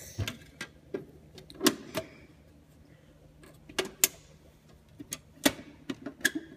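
Irregular hard-plastic clicks and knocks from a Bruder toy container truck being handled: a plastic crate of pebbles is set inside and the hinged container doors are swung shut and latched.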